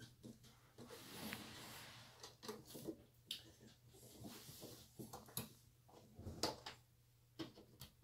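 Faint, scattered clicks, knocks and rubbing as a new rubber drive belt is worked by hand onto the motor and drum pulleys of a Whirlpool belt-drive washing machine. The sharpest knock comes about six and a half seconds in.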